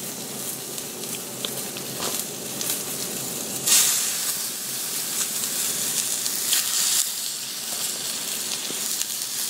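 Chicken breasts sizzling in hot olive oil in a cast iron skillet. The sizzle flares louder each time another breast is laid into the pan, most strongly about four seconds in.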